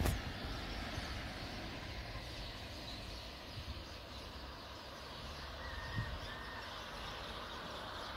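Steady outdoor background noise with a low rumble, a click at the very start, and two short bird chirps about six seconds in.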